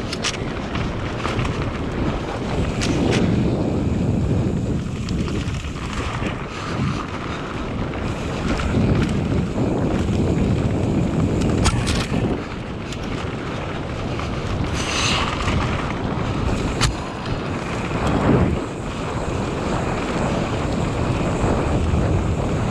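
Wind rushing over the microphone as a downhill mountain bike descends at speed, with the tyres rumbling over rough ground. A few sharp knocks and rattles come from the bike over bumps, and a brief hiss comes about fifteen seconds in.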